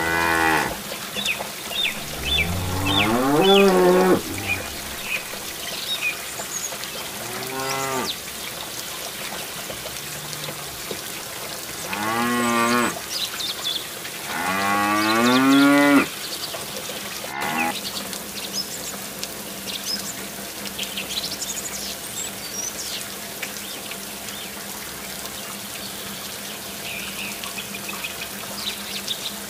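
Cattle mooing about six times, long drawn-out moos, the last one about two-thirds of the way through. Under them runs a steady trickle of water from a small pump pouring into a shallow pool.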